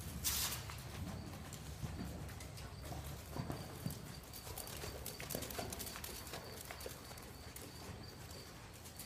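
A horse's hooves trotting on soft sand arena footing, a run of dull, irregular thuds. A short burst of noise cuts in near the start.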